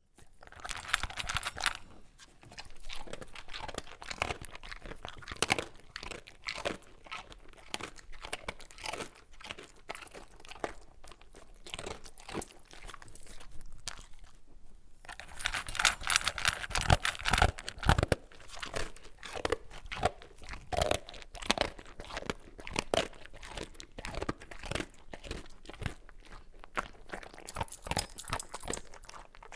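A dog eating crunchy dry kibble: irregular, rapid crunching and chewing, with a brief pause about halfway through and a louder bout just after it.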